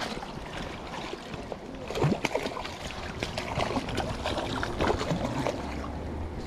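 A hooked pink salmon thrashing at the surface near the bank, a run of irregular splashes over steady moving-water noise.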